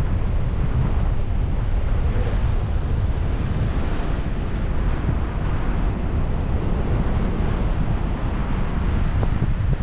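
Strong wind buffeting a camera microphone: a steady, loud rumbling rush, heaviest in the low end, with no other sound standing out.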